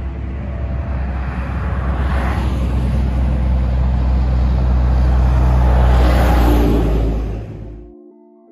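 Highway traffic going past close by: trucks and cars with a heavy low rumble and tyre noise, swelling as vehicles pass at about two seconds in and again around six seconds. The traffic noise cuts off suddenly near the end, and soft music tones follow.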